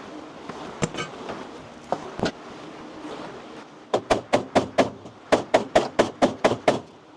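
Hammer blows: a few single strikes, then a quick run of about a dozen blows at roughly four a second, with a short break partway through.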